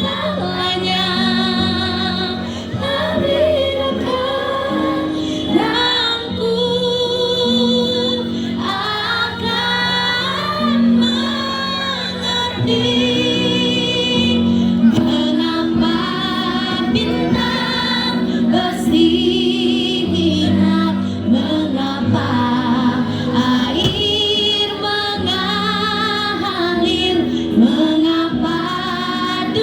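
A school choir of young voices singing a song together, holding long notes in harmony.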